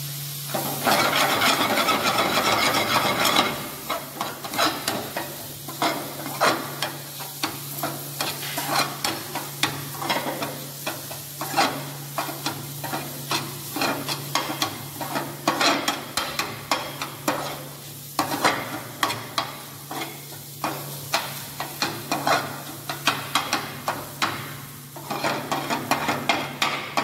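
A steel ladle stirs and scrapes a cabbage-and-spice mixture around an aluminium kadai over light sizzling. It knocks and scrapes against the pan about once or twice a second, after a loud, dense stretch of stirring and sizzling in the first few seconds.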